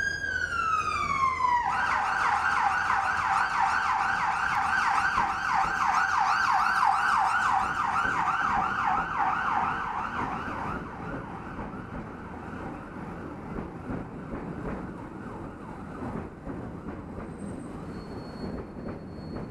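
A siren sounding a falling wail, then switching to a rapid yelp that fades out about ten seconds in, over traffic noise.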